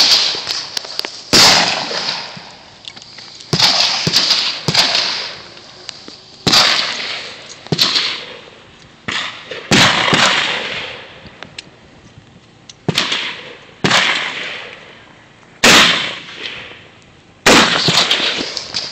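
Gunshots, about a dozen at irregular intervals of one to three seconds, each a sharp crack followed by a long echoing tail.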